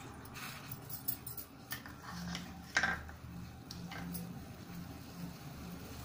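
A spoon clinking once against a cooking pot about three seconds in, with a few fainter ticks, as a spoonful of ginger is added to water heating on the stove. A faint low hum runs underneath.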